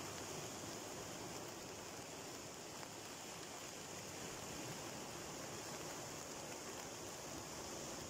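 Sea waves breaking and washing in over a rocky shore: a steady, even wash of surf noise with no separate crashes standing out.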